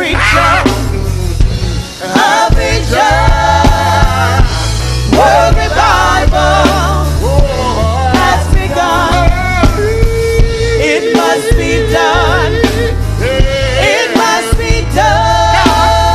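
Gospel music with singing over a heavy bass line: sung lines rising and falling, with held notes about ten seconds in and near the end.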